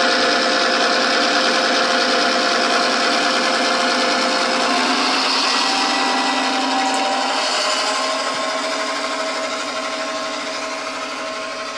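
G-scale model diesel locomotive's ESU sound decoder playing a diesel prime mover sound through its small speaker, over the whine of its running motor and gears. The owner says the sound is closer to an EMD 16-645 prime mover than the GE engine a Dash-9 should have. It fades near the end as the locomotive runs away.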